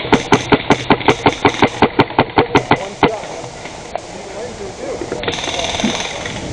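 Airsoft gun firing a rapid, even string of shots, about six a second, that stops about three seconds in. Faint distant voices and outdoor noise follow.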